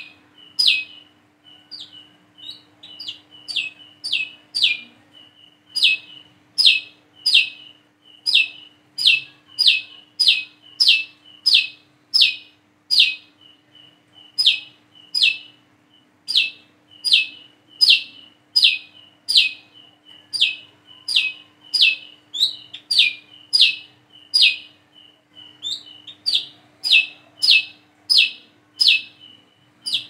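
Brown-throated sunbird (kolibri kelapa) calling its 'wiceh' call: a steady run of sharp, high chips, nearly two a second, each sliding downward, with softer short notes between them. A faint steady hum lies underneath.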